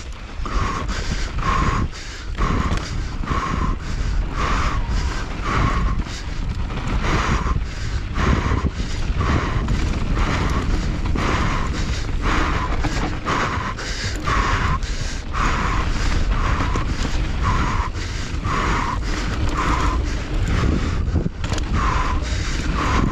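Mountain bike descending fast on a loose, dusty trail: a steady rumble of wind and tyres with frequent rattling knocks from the bike. The rider's hard breathing comes in short puffs about once a second.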